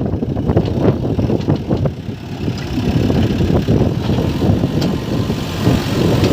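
Heavy diesel machinery engine running at a steady idle, with irregular knocking and rattling over it.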